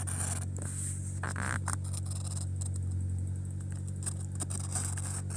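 A blade cutting along the seam of a convertible soft top's fabric to remove the rear window, giving irregular scraping, slicing strokes over a steady low hum.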